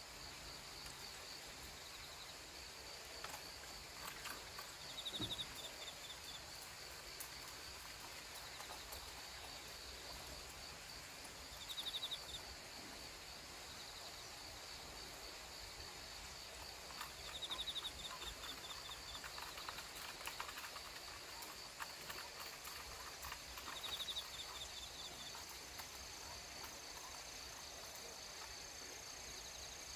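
Insects chirring steadily, with a short pulsed trill repeating about every six seconds. Faint clicks and rustles come and go.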